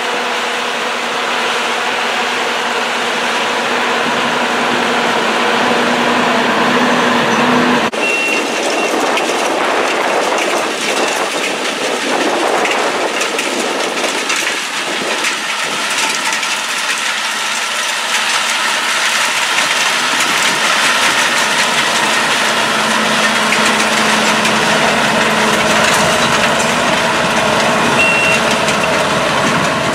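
Engine of a rail tie-gang track machine running steadily, with a continuous clatter of machinery. A short, high beep sounds about eight seconds in and again near the end.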